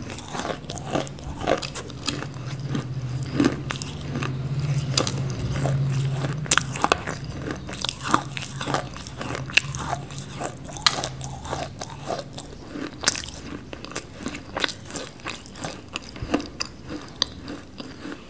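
Edible clay (nakumatt) being chewed right at a clip-on microphone: a steady run of sharp, crisp crunches, mouth-close.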